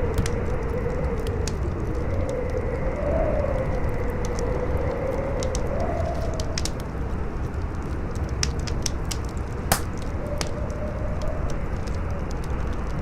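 Wind howling in a wavering whistle that rises and falls over a steady rushing noise, with a wood fire crackling in scattered sharp pops. One louder pop comes near the end.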